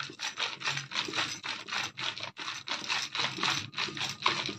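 Rolling pin rolling flour-dusted semolina paratha dough back and forth on a round board, a rhythmic scraping and rubbing at about four strokes a second.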